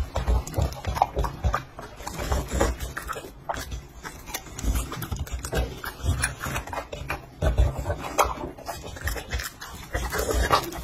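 A dog chewing and crunching cucumber close to a microphone: irregular crunches and wet mouth sounds in bouts.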